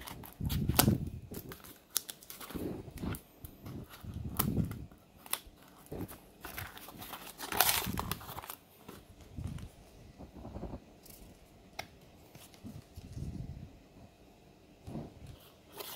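Scissors slitting the packing tape on a small cardboard box, then the cardboard flaps being pulled open and the contents handled: irregular rustling, crinkling and tearing, with the loudest, a brief tearing sound, about halfway through.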